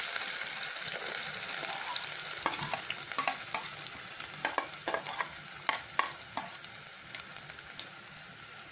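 Chopped onions sizzling in hot oil in a steel pot, a steady hiss that slowly dies down as the onions cool the oil. Through the middle, a metal spoon scraping the plate makes a run of sharp clicks.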